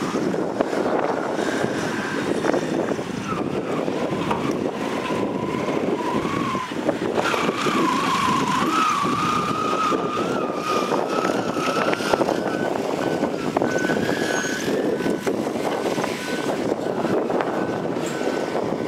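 Heavy diesel dump truck running as its hydraulic hoist tips the loaded bed and soil slides out. A whine wavers in pitch through the middle, and a faint, evenly repeating beep comes in near the end.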